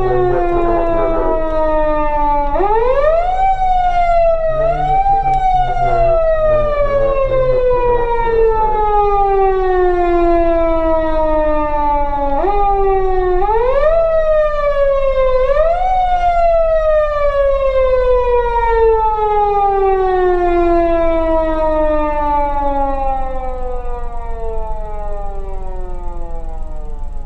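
PATLITE SAP-520 siren amplifier sounding a wailing motor-siren-style tone. Its pitch is pulled up sharply five times, twice a few seconds in and three times in the middle, and otherwise winds slowly down. It ends in one long falling wail that fades off.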